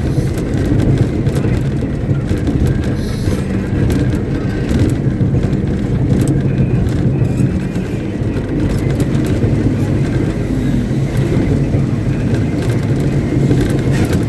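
Caterpillar 777D haul truck's V8 diesel engine running at a steady speed, a low, even drone with no change in pitch.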